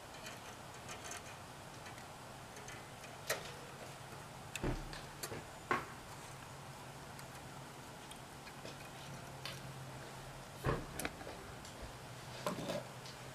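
Scattered light clicks and taps of small metal and plastic parts being handled as a carburetor's throttle linkage rod and spring are fitted to a Honda GCV160 engine, about half a dozen at uneven intervals, over a faint steady low hum.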